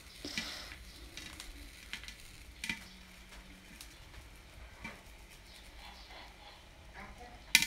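Popcorn kernels popping now and then in a covered pot over faint sizzling oil, each pop a sharp single crack, the loudest near the end.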